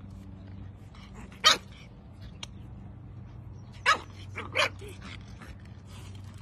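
Pug puppy giving three short, high barks: one about a second and a half in, then two close together around four seconds in.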